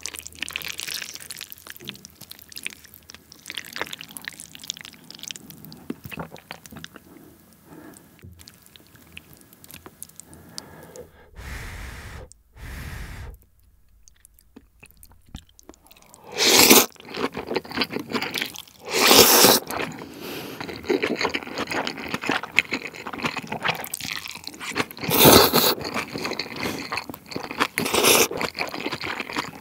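Close-miked chewing of mala xiang guo, spicy stir-fried noodles and vegetables, with several short loud slurps of noodles in the second half.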